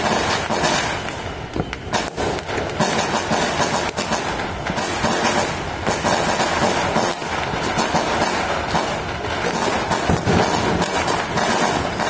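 Dense, unbroken crackling and popping of many fireworks and firecrackers going off across a city, with frequent sharp reports.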